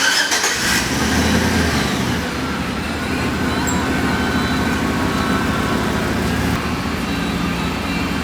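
Engine of a 2013 Chevy Silverado 1500 pickup starting with a click about half a second in, then idling steadily.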